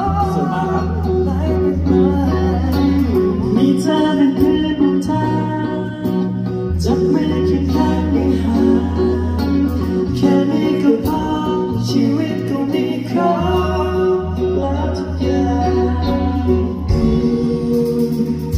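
A song playing: singing over guitar and a steady bass line that changes note every couple of seconds.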